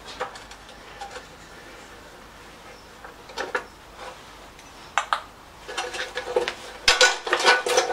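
A spanner and fingers clinking and scraping on the steel fuel tank and fittings of a Lister LR1 diesel engine: a few scattered clicks at first, then a quick run of ringing metal clinks in the last two seconds.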